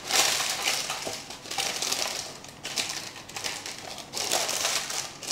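Parchment paper crinkling and rustling in irregular bursts as a sheet is pressed and folded by hand into a baking pan.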